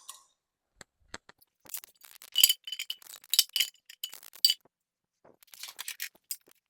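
Irregular metallic clinks and taps with a short ringing tone: tools and bolts knocking against the aluminum intake runner and cylinder head as bolts are snugged down. The clinks cluster from about two seconds in, then a few more come near the end.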